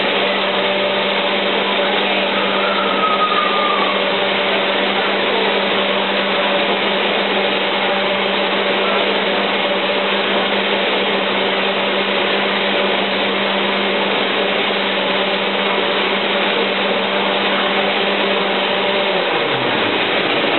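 Electric motor of a taffy-pulling machine running with a steady hum. Near the end its pitch drops as it slows down and stops.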